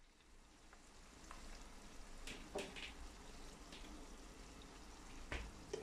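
Sliced onions and green chillies sizzling quietly in oil in a nonstick wok on medium heat, with a steady hiss and scattered crackles, and a few sharper clicks.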